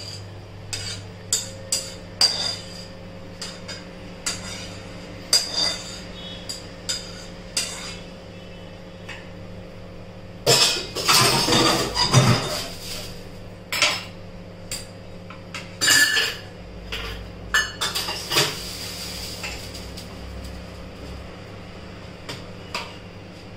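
Stainless steel pan, spoon and bowl clinking and knocking as melted ghee and jaggery are scraped onto ground bhakri and mixed in. There is a longer run of clatter about halfway through, and a steady low hum underneath.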